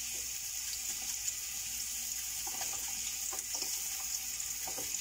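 Olive oil with garlic sizzling steadily in an aluminium pot as chopped onion goes in off a knife, with a few faint ticks.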